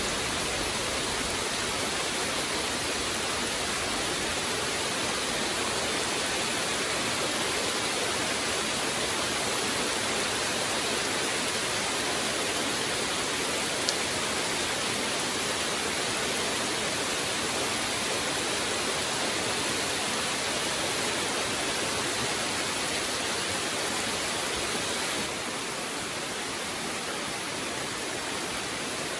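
Steady rain falling, an even hiss that eases slightly near the end.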